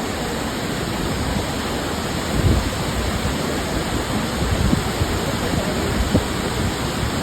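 Steady rushing roar of Burney Falls' waterfall, with a few short low thumps on the microphone.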